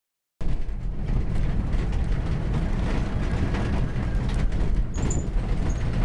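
Vehicle driving over a rocky dirt road, heard from inside the cabin: a steady low engine and road rumble with frequent rattling knocks as it jolts over the rocks.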